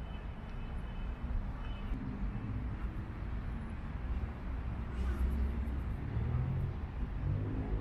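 Road traffic: a steady low rumble of passing vehicles, swelling a little past the middle.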